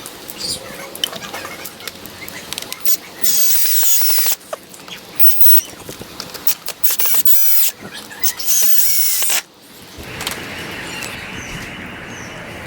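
A power drill runs in two bursts of a second or so, about three seconds in and again near eight seconds, with a squeaky high whine in each. Clicks and knocks come between the bursts, and a steady hiss takes over near the end.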